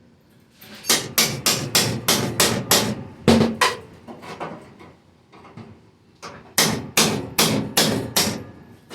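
Hammer blows on a screwdriver driven into the sheet-metal body of a 1980 Jeep CJ7 to break its spot welds. The sharp metallic strikes come about three a second in two runs, with a pause of a couple of seconds between them.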